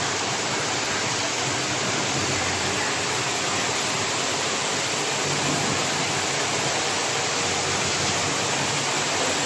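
Vortex vegetable washing machine running: a steady rush of churning water, with a faint low hum underneath.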